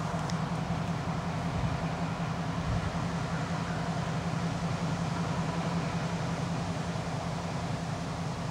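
Diesel switcher locomotive's engine running steadily as it moves slowly with a boxcar and tank car in tow.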